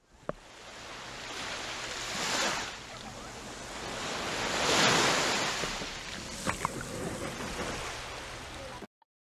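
Small sea waves washing up a sandy beach and over the microphone's spot at the water's edge, surging twice, about two and a half and five seconds in, then drawing back. The sound cuts off abruptly just before the end.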